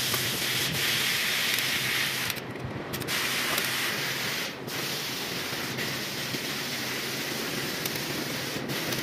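Steady hissing noise with no clear clicks or rhythm, dipping briefly a few times.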